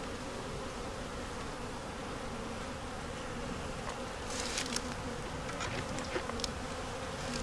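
Honey bees humming steadily around an opened hive as frames are inspected. From about four seconds in, a few light clicks and a short scrape of a frame or hive tool sound over the hum.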